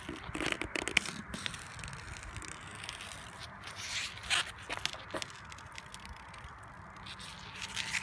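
Plasti Dip rubber coating being peeled by hand off chrome grille trim: irregular small clicks and a rough tearing noise, busiest in the first second and again around four to five seconds in.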